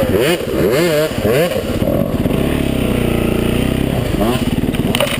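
Yamaha dirt bike engine revving in quick up-and-down blips for the first second and a half, then settling to a lower, steadier note that dips and rises again before climbing near the end.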